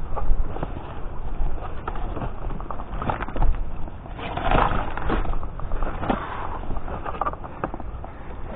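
Rummaging through rubbish in a dumpster: bags rustling and items knocking and clattering, with a few louder bursts of rustling midway.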